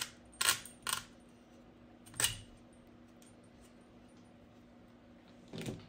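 Small screws clinking as they are dropped into and set in the holes of an RC car's engine gear plate: a few sharp metallic clicks in the first couple of seconds.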